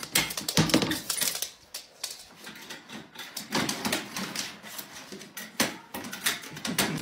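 Plastic pet carrier's metal wire door rattling and clicking as it is handled and swung shut. It is a fast, irregular run of sharp clicks, with a few louder knocks near the start and again near the end.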